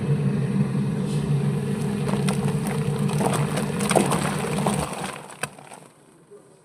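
Skyzen 8 kg semi-automatic washing machine running: a steady motor hum with rattles and clicks, which stops about five seconds in and fades away.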